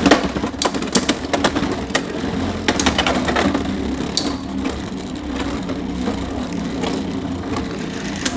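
Two Beyblade X spinning tops battling in a plastic stadium: rapid sharp clacks as they collide during the first few seconds, then a steady spinning hum with only occasional knocks.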